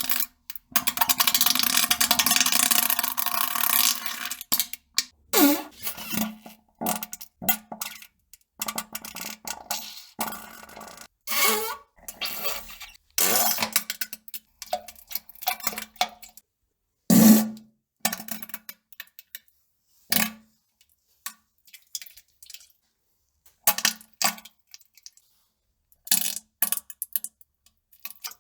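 Person defecating and farting: a long sputtering, hissing stretch near the start, then a string of short fart and plopping sounds with silent gaps between them, the loudest one about seventeen seconds in.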